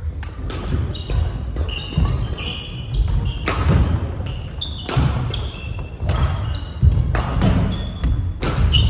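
Badminton singles rally on a wooden sports-hall floor: sharp racket strikes on the shuttlecock about every one to two seconds, with court shoes squeaking and feet thudding on the boards between shots.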